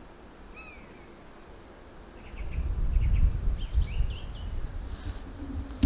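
Small birds chirping in short, high notes around a woodland, with a low rumble on the microphone setting in about two seconds in and becoming the loudest sound.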